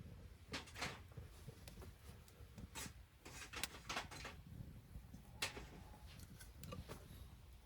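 Scattered small clicks, taps and rubbing sounds of objects being handled, over a faint low rumble.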